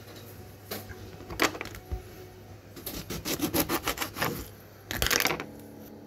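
A lemon being cut in half with a knife: a quick run of short rasping sawing strokes, then a brief louder scrape about five seconds in.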